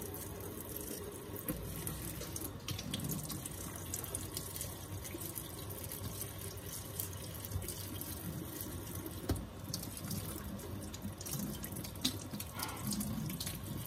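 Kitchen tap running steadily into a sink while potatoes are peeled by hand with a knife, with a few faint clicks and scrapes.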